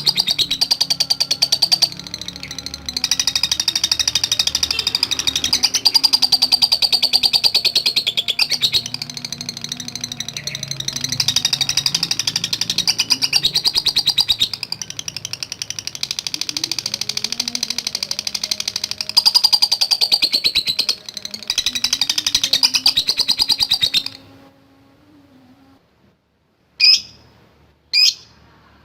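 Lovebird giving a long, very fast rattling chatter (ngekek), a rapid run of clicks carrying a high ringing note, which stops about 24 seconds in; three short sharp calls follow near the end.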